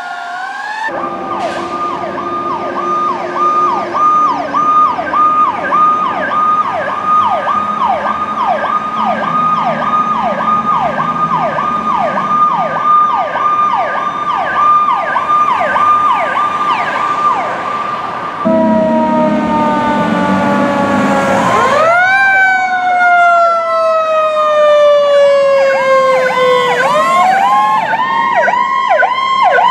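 Emergency vehicle sirens: an electronic siren yelping fast, about two sweeps a second. Around 18 seconds in it gives way to a slow wail that falls, climbs sharply, falls and climbs again.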